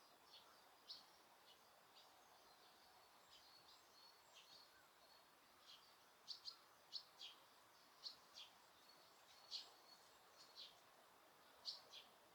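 Small birds chirping: many short, high chirps, often in quick pairs, scattered through and coming more often in the second half, over a faint steady background hiss.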